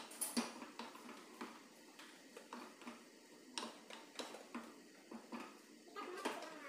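Wooden spoon stirring in a saucepan, with a string of irregular light knocks and scrapes against the pot.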